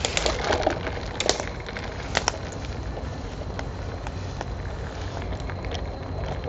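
Footsteps pushing through dense undergrowth, dry leaves and twigs crackling and snapping, thickest in the first couple of seconds and sparser after, over a steady low rumble.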